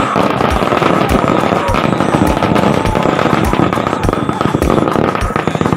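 A string of firecrackers going off on the ground in a rapid, continuous crackle of pops, starting right at the beginning, with a steady music beat underneath.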